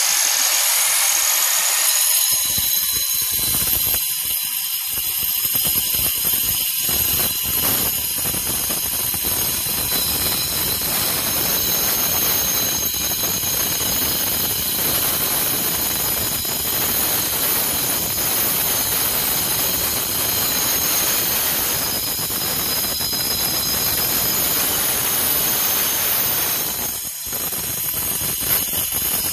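Grinder with a diamond disc cutting into stone, running loud and steady with a high whine. A coarse grinding noise fills in about two seconds in, and the sound eases briefly near the end.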